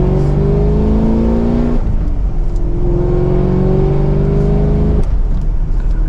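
Modified 6.2-litre V8 of a 2023 Chevrolet Camaro SS with aftermarket exhaust, accelerating mildly through the gears of its six-speed manual, heard from inside the cabin. The engine note climbs steadily in pitch, drops at an upshift about two seconds in, climbs again and drops at a second upshift about five seconds in.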